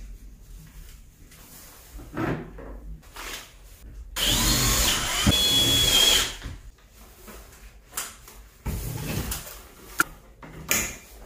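A power drill runs for about two seconds, starting about four seconds in, with a motor whine that bends and then holds steady. Short knocks and rustles of the work on the wall fixtures come before and after it.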